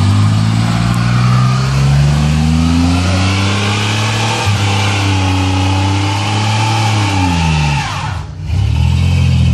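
A truck engine revving hard through a burnout, its rear tyres spinning and squealing on the asphalt. The revs hold high, dip and climb again, then fall away about eight seconds in before picking up once more near the end.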